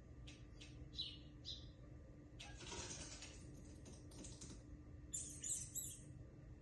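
Small birds chirping and fluttering their wings, played back through a TV's speakers: short high chirps in the first second and a half, a rustle of wings in the middle, and a quick cluster of chirps near the end.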